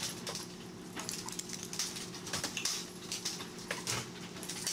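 A small dog scrabbling through a wooden baby gate on a tile floor: scattered light clicks and knocks from its claws and the rattling gate, over a steady low hum.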